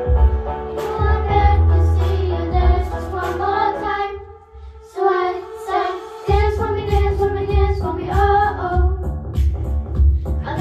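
A group of girls singing a pop song together into microphones over music with a heavy, pulsing bass beat. About four seconds in, the music and voices dip almost to nothing for a moment. The voices come back alone, and the bass beat rejoins a second or so later.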